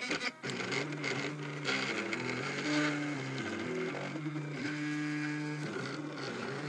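3D printer's stepper motors whining as the print head traces a layer, the pitch jumping to a new steady note with each change of move.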